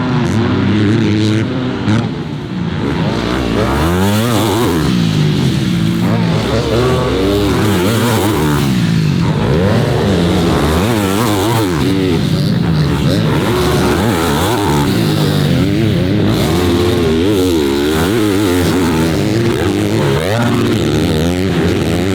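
Four-stroke motocross bikes racing around a dirt track, engines revving hard and shifting, their pitch rising and falling over and over, with more than one bike heard at once.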